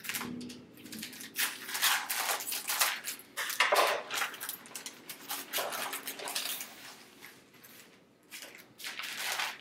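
Scissors snipping through a thin clear plastic bag, then the plastic crinkling and rustling in irregular bursts as the bag is pulled open and the vinyl sheets are slid out.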